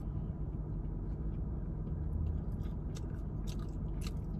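Close-up chewing of a sauced fried vegan wing: faint wet mouth clicks and smacks at irregular moments, over a steady low hum inside the car.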